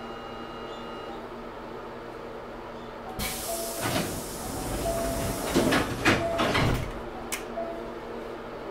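Hankyu 6300 series train's passenger doors closing, heard from inside the car: a sudden hiss of air from the pneumatic door engines about three seconds in, then several thuds as the doors slide shut, with a few short beeping tones.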